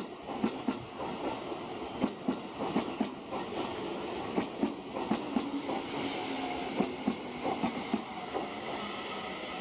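Seibu 30000 series electric train rolling slowly past. Its wheels make irregular clicks and knocks on the track, several a second, over a steady rumble.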